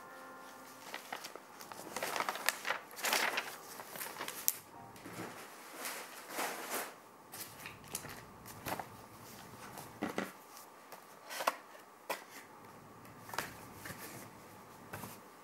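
Irregular small clicks, scratches and crinkles of something being handled close to the microphone, coming every second or so.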